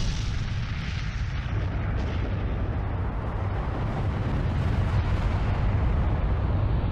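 Long, steady low rumble of a nuclear explosion, heavy in the bass with a hiss above it.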